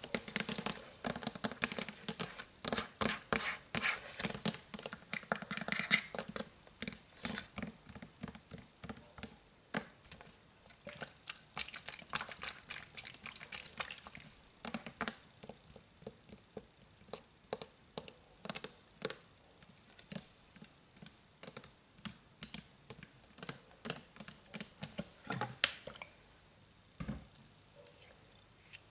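Fingernails scratching and tapping on a plastic Downy fabric softener bottle, in runs of quick clicks. The clicks are dense for about the first fourteen seconds, then sparser, and they nearly stop near the end.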